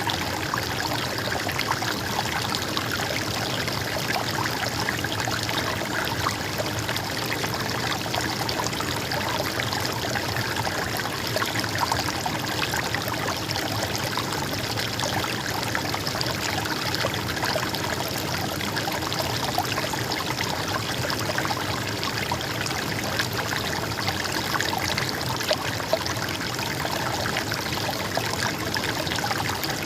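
Small river or stream flowing, with a steady babbling and trickling of water.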